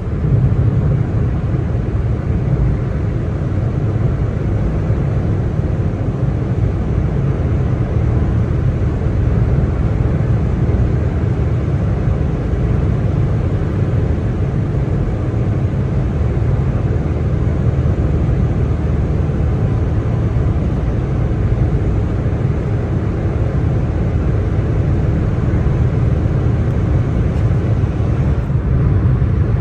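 Car driving at motorway speed on a wet road in the rain: a steady low rumble of road and engine noise with a fainter hiss of tyres on the wet surface.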